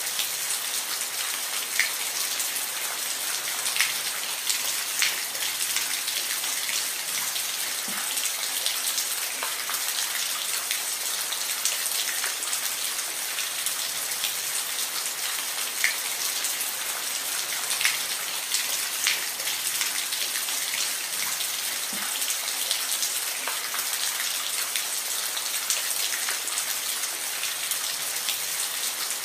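Steady rain with individual drops ticking on a surface, an even hiss throughout.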